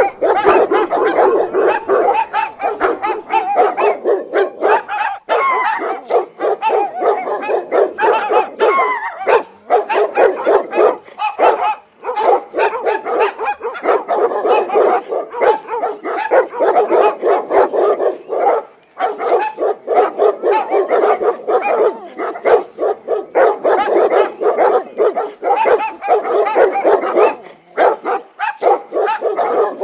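A pack of dogs barking angrily, with many barks overlapping in a dense, continuous volley and only a few brief lulls.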